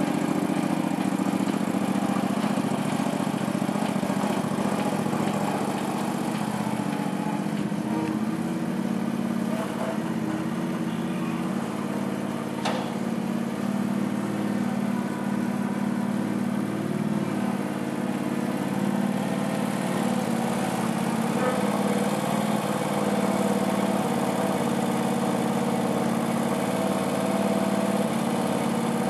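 Engine of a homemade articulated dump truck running steadily, easing off slightly in the middle and picking back up, with a single sharp click about twelve seconds in.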